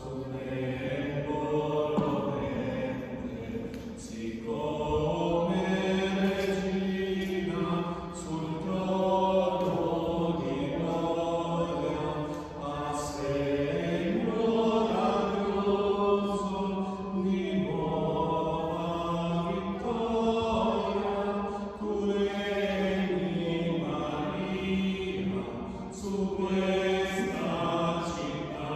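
Men's voices singing a slow hymn, holding each note for a second or more.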